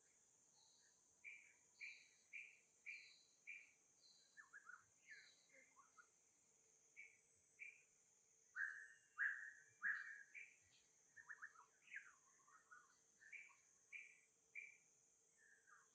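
Short, high chirping calls from an animal, five evenly spaced at first, then scattered falling chirps with the loudest about two-thirds of the way in, over a steady high insect drone.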